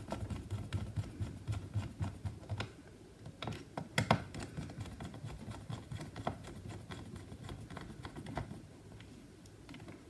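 Light, irregular clicks and taps of a Phillips screwdriver and fingers on the drive bracket screws inside an open 2012 MacBook Pro's aluminium case, with one sharper click about four seconds in.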